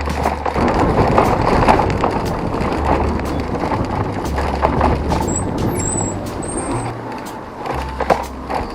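Steady road-traffic noise of vehicles passing, with a background music track's bass line underneath.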